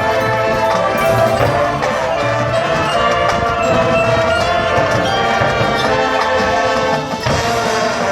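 High school marching band playing, the brass section holding steady chords over percussion, with a short break in the sound about seven seconds in.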